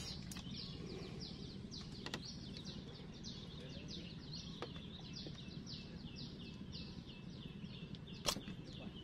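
A bird calling over and over, a short falling chirp about three times a second, over a low steady outdoor background. A few sharp clicks, the loudest one near the end.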